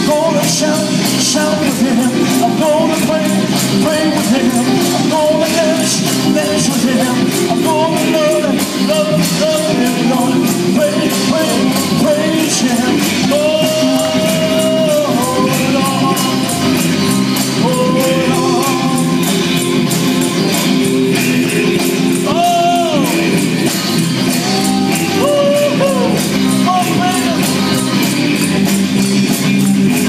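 Live band playing: electric guitars and a drum kit with a man singing held, wavering notes into a microphone, over a steady beat.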